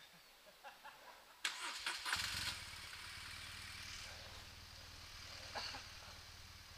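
A motorcycle engine being started: a short clatter, then the engine catches about two seconds in and runs steadily at low revs.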